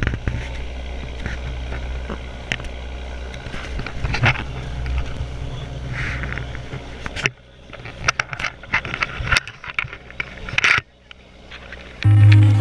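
A boat under way: a steady low engine rumble with water rushing along the hull. About seven seconds in it cuts to a quieter stretch of scattered knocks and clatter, and music starts right at the end.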